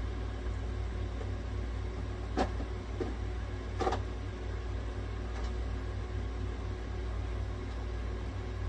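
Inhalation-therapy equipment (nebulizer and oxygen supply) running with a steady low hum as it fills the oxygen chamber with mist. Two brief clicks come about two and a half and four seconds in.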